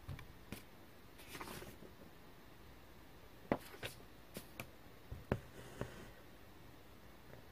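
Quiet hand-stitching sounds on black 14-count cross-stitch fabric: a soft swish of embroidery floss drawn through the fabric about a second in, then a run of light clicks and taps as fingers handle and smooth the fabric.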